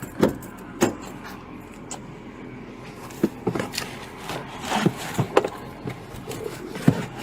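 A series of irregular knocks and clicks, about eight of them at uneven spacing, with some rustle and clatter of handling close to a body-worn camera.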